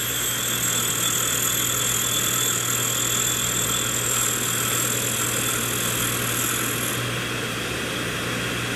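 Rush Model 132 drill grinder running with a steady motor hum while a diamond dresser is fed into the side of the grinding wheel, giving a high hiss as it dresses the wheel. The hiss stops about seven seconds in, leaving the grinder running on its own.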